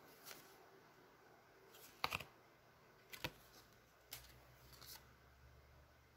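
Faint handling of trading cards: a few short soft taps and rustles as one card is set down and the next picked up. The loudest taps come about two and three seconds in.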